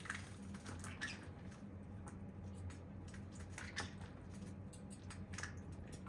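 Green-cheeked conure bathing in a steel water dish: irregular short splashes and rustling wing flaps.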